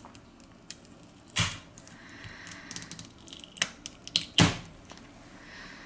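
A Samsung Galaxy A3 (2017) battery being pried out of the phone's frame with a plastic tool: small clicks and scrapes, with two louder snaps about a second and a half in and near the end.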